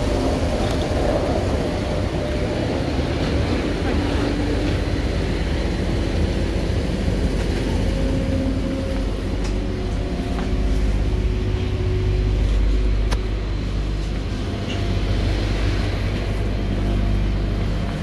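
Tyne and Wear Metrocar heard from inside the car: a steady low rumble, heavier about halfway through, with faint humming tones that come and go.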